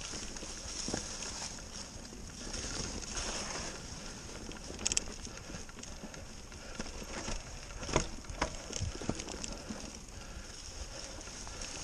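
Mountain bike riding over a leaf-covered dirt trail: a steady rolling noise from the tyres, broken by sharp knocks and rattles from the bike over bumps, the loudest about five seconds in and twice around eight seconds in.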